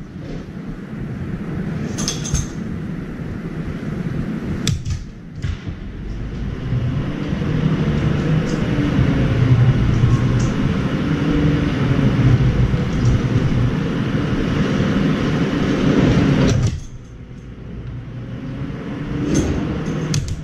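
A steady low rumble builds up over several seconds and cuts off suddenly about three-quarters of the way through. A few sharp taps and clicks come before and after it.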